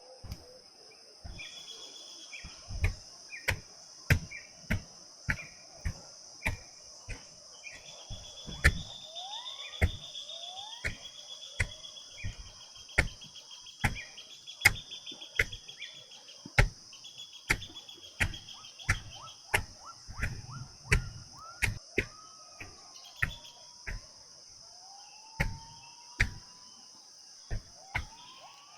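A hoe striking soil over and over, roughly one to two strokes a second with a dull thud in each. A steady high insect drone and bird chirps run underneath.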